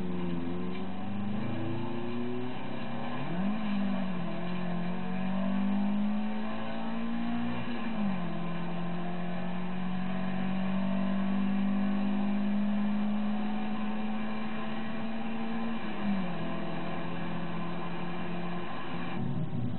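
In-car sound of a Toyota 2TG 1.6-litre twin-cam four-cylinder engine driving hard in a Starlet. The engine note climbs and then steps down at gear changes about 3.5, 8 and 16 seconds in, and stops shortly before the end.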